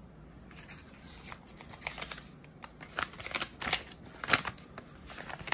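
Paper leaflet being unfolded by hand, with irregular crinkling and crackling of the paper. A few sharper crackles come in the middle.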